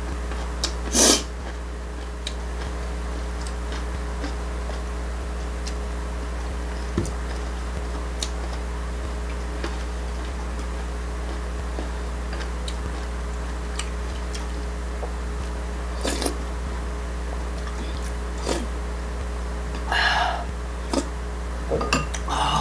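Eating at a table: scattered sharp clicks of chopsticks against bowls, the loudest about a second in, and a couple of short mouth sounds of eating near the end, over a steady low hum.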